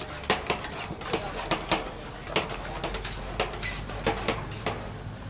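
Rapid, irregular sharp clacks and knocks, about three a second, like hard utensils striking a hard surface.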